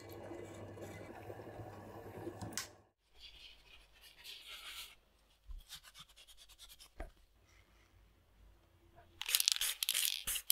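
Short bursts of brush scrubbing while the radio's buttons and shoulder strap are being cleaned, the longest and loudest stretch coming near the end. A steady hum in the first few seconds cuts off abruptly.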